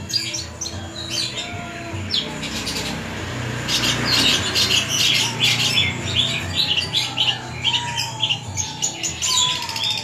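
Caged long-tailed shrike (cendet) singing a varied song of short, sharp high notes in quick succession, sparser at first and busiest from about four seconds in, with a few lower whistled slurs near the end. This is the mixed, mimicking song for which the species is kept.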